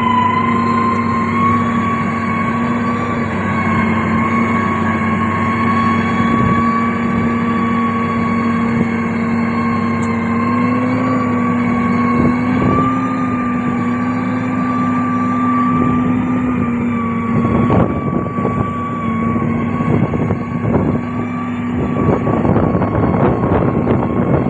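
Heavy diesel construction machinery running steadily at a constant engine speed. From about two-thirds of the way in, irregular clattering and crunching knocks join the engine sound.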